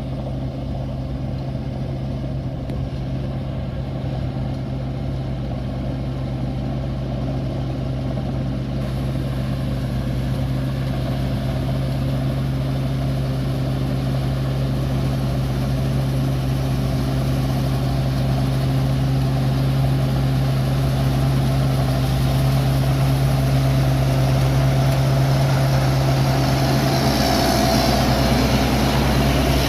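Large rice combine harvester's engine running steadily, slowly getting louder, with a higher whirring building up near the end.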